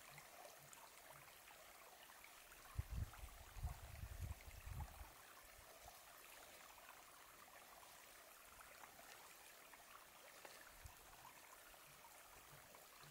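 Near silence: a faint, steady outdoor hiss, with a few low thumps from about three to five seconds in.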